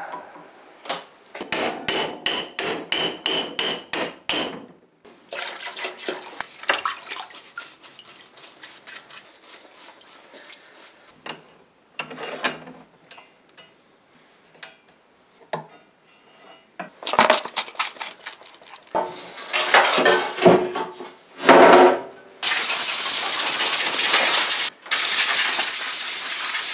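A hammer striking a steel punch in an even run of sharp metal blows, about four a second, driving out a stuck roll pin on a pallet truck's wheel support. Rasping metal-working strokes and loud irregular knocks follow. Near the end comes a steady aerosol hiss from a penetrating-fluid spray can, in two long bursts.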